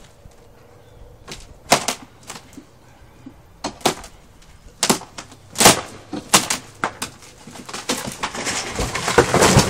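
Wooden pallet treehouse breaking apart as it is pulled down: single sharp cracks and knocks of the timber giving way, then near the end a dense, louder run of cracking and crashing as it collapses out of the tree.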